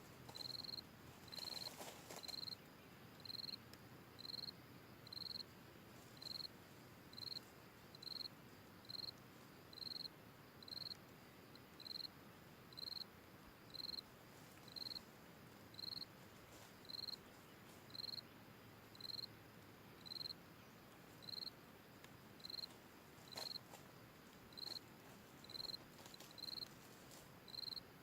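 An insect chirping steadily in the forest: a short high chirp repeated evenly about once a second. A brief rustle comes about two seconds in.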